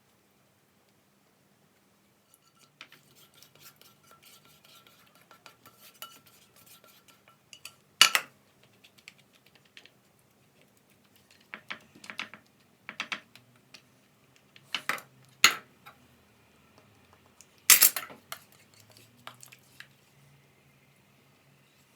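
Metal kitchen utensils clinking and scraping against dishes and pans: quiet clicks and scrapes at first, then several sharp clinks, the loudest about eight seconds in and near the end.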